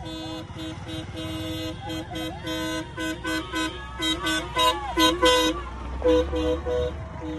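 Vehicle horns tooting in a string of short blasts, loudest about four to five seconds in. Under them is the low running of a passing SUV and motorcycles.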